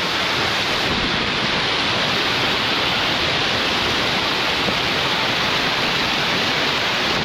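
Waterfall rushing close by: a loud, steady, unbroken roar of falling water.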